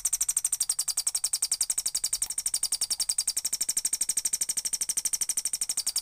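Homemade two-transistor (BC547/BC557) bird-sound oscillator circuit sounding through a loudspeaker: a fast, even train of high-pitched electronic chirps, imitating birdsong.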